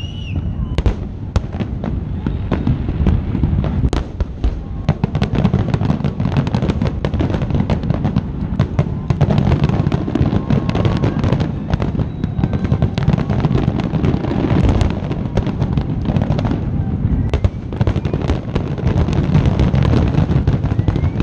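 Fireworks finale: a dense barrage of aerial shells bursting in rapid succession, many sharp cracks over a continuous low rumble.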